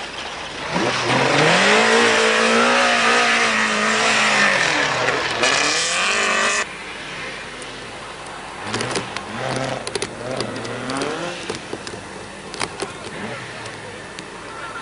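Rally car engine revving hard as it goes by close, its pitch rising, holding and falling under a loud hiss, then cut off abruptly about halfway through. After that, a second car revs up and down more faintly, with a few sharp clicks.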